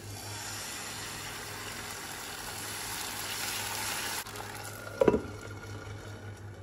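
Dosa batter sizzling on a hot nonstick pan as it is poured and spread in a circle with a ladle. The sizzle swells, then drops about four seconds in. About five seconds in there is one sharp clunk as a glass lid is set on the pan.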